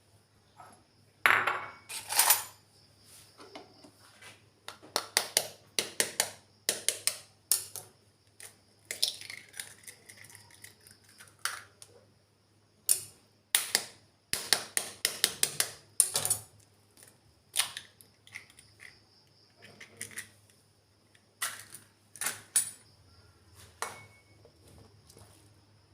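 Kitchen utensils and dishes clinking and knocking: irregular sharp taps and clatters, some in quick runs of several strokes, over a faint steady electrical hum.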